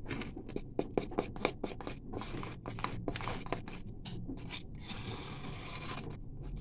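Small hand trowel scraping and scooping gritty potting soil in a pot: a quick run of short scratchy scrapes, easing after about four and a half seconds into a softer, steadier rustle.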